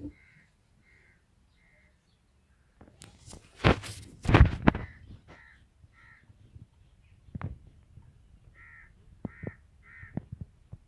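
A crow cawing in short runs of three or four calls, one run at the start and another near the end. About three to five seconds in comes a loud burst of knocks and scrapes, the loudest thing here, with a few sharper clicks later.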